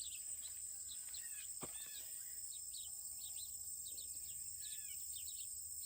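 Late-summer insect chorus, a steady high-pitched trill of crickets, with small birds giving many short, quick chirps over it.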